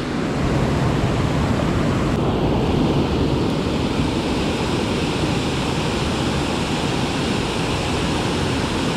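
Steady rushing of river water pouring over a low spillway close by.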